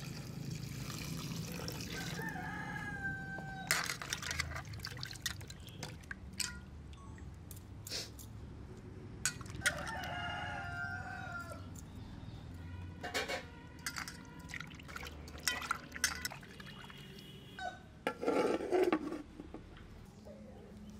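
Water pouring into an aluminium bowl of cut fish pieces, then wet splashes and clinks as the pieces are lifted out of the water by hand and set on a clay plate. A rooster crows twice, about two seconds in and again about ten seconds in.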